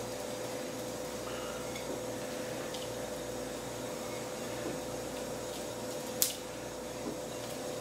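Steady room hum with faint hand-handling sounds as dried herbs are pinched and rubbed onto a raw chicken on an aluminium sheet tray, with a few light clicks and one sharp click about six seconds in.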